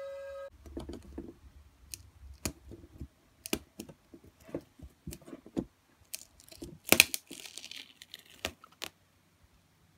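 Fine strands of hot-glue web crackling and snapping as a playing card coated in them is handled and pulled free, in irregular small snaps with the sharpest about seven seconds in. In the first half-second a steady whine from the web shooter cuts off.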